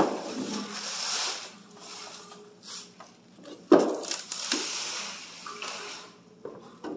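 Plastic shrink wrap and bags crinkling and rustling as they are pulled off a long steel part, with a sharp knock a little under four seconds in and a lighter one shortly after as the part is handled in its wooden crate.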